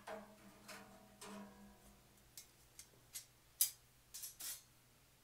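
Steel angle brackets being lifted off a bed bug heater's sheet-metal frame and set aside: a few knocks with brief metallic ringing in the first two seconds, then a string of sharp clicks and taps, the loudest about three and a half seconds in.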